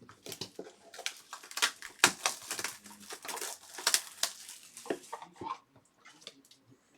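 Trading cards and pack wrappers being handled: a quick run of rustling, sliding and tapping sounds as cards are pulled and sorted.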